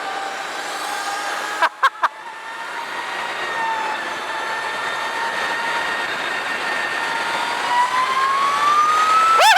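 Electric motor whine of an Energica Eva motorcycle under way, a steady tone over rushing noise. The tone cuts out briefly about two seconds in, then climbs in pitch over the last couple of seconds as the bike speeds up.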